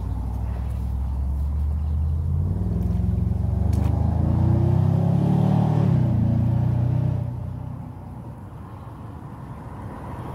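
A motor engine running nearby. It grows louder and rises in pitch, then fades off sharply about seven seconds in.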